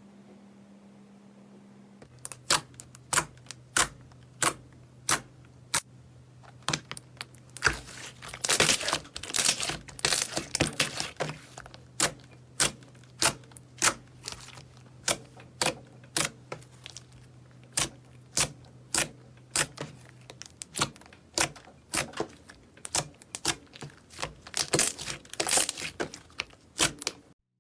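Slime being squeezed and pressed by hand, making sharp wet clicks and pops about once or twice a second, with denser runs of crackling around a third of the way in and again near the end.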